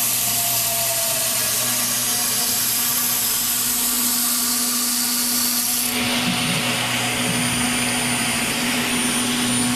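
CNC machine running: a steady whirring hiss over a low hum. The hiss abruptly changes character about six seconds in, and a thin high whine joins it.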